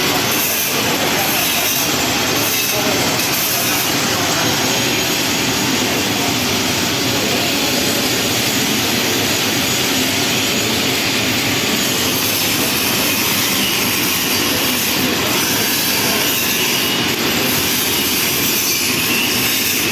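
Electric arc welding: a loud, steady hiss with a fine crackle that runs without a break.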